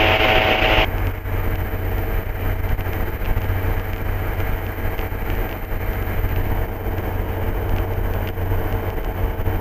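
Engine and propeller of an MD3 Rider ultralight aircraft running steadily in flight, a low drone heard in the cockpit. A hiss over it cuts off about a second in.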